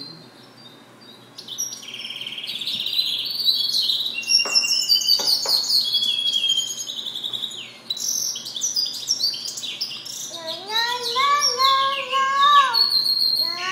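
Goldfinch mule, a European goldfinch × canary hybrid, singing in its cage: a long, fast, twittering song of varied trills and high notes. Near the end, a run of lower, rising notes joins in.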